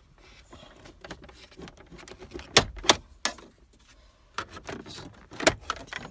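Plastic interior trim panel being pried and worked loose, its retaining clips giving a string of clicks and knocks, with the sharpest snaps twice about two and a half to three seconds in and once more near the end.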